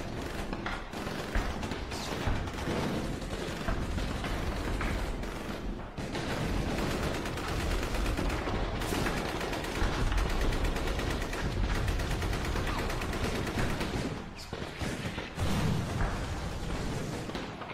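Sustained gunfire: rapid, overlapping bursts of automatic and machine-gun fire with scattered single shots, heaviest through the middle stretch.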